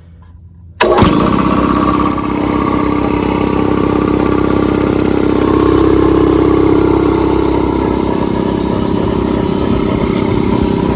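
Portable air compressor switching on about a second in, then running steadily with a constant motor hum.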